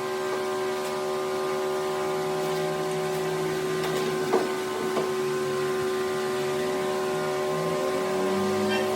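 Steady machine hum, a motor running at constant speed, with a faint click about four seconds in.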